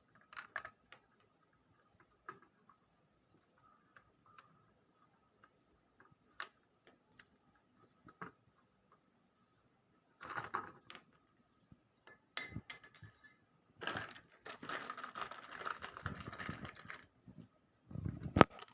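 Hands handling small electrical fittings. There are scattered light clicks and taps, a longer rustling stretch about 14 seconds in, and a heavier knock near the end.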